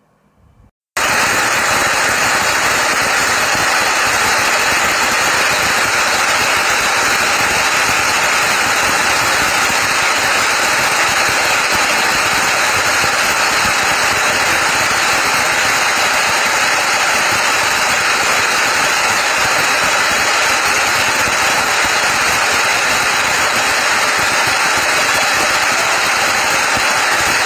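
Tube-well drilling rig's machinery running loud and steady, starting abruptly about a second in.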